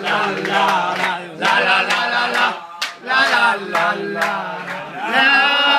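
A group of men chanting a farewell chant in unison, in short sung phrases with some hand claps. Near the end they hold one long note.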